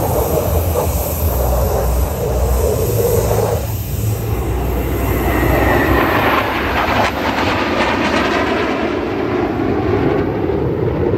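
Formation of military jet aircraft flying past overhead, a continuous jet engine noise that swells about six seconds in, with a faint falling whine as the jets pass.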